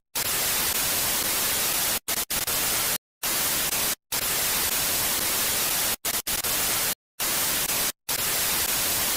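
Television static: a steady hiss of white noise, broken by short silent dropouts every second or two.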